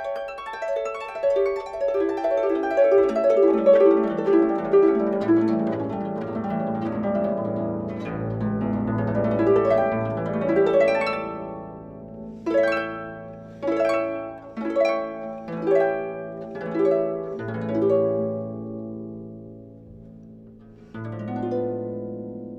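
Solo 47-string concert pedal harp: plucked arpeggios cascade down from the treble into the bass over the first several seconds. Then come about six rolled chords, roughly one a second, which die away, and a final low chord is struck and left to ring near the end.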